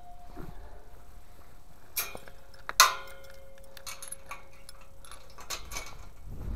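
Metal chain fastener on a field gate being handled: clinks and rattles of chain links against the metal gate fittings, with a sharp clank a little under three seconds in and a faint metallic ring hanging on after it.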